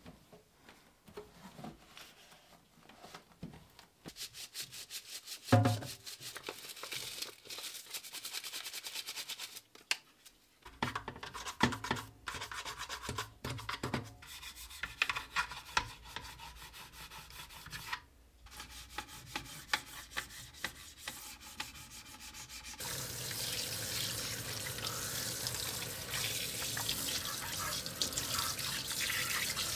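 Cloth rubbing on plastic, then hands rubbing, scraping and knocking a plastic washing-machine detergent drawer, with a sharp knock about five seconds in. About three-quarters of the way through, a kitchen faucet turns on and runs steadily, water splashing over the drawer into a stainless-steel sink.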